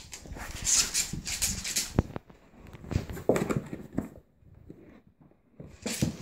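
A dog and a kitten play-fighting in a cardboard box: scuffling and rustling against the cardboard in irregular bursts, with a sharp knock about two seconds in.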